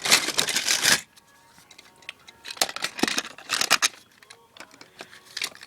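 Small toy bus models being handled and rummaged through: a brief rustle, then scattered light clicks and rattles of small toy parts knocking together.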